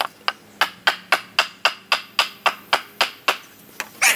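A short-handled hammer beating on a wooden board, a quick even run of about a dozen knocks at roughly four a second. The board is held against the end of a PVC pipe to drive a section into the flagpole tube. One louder knock comes near the end.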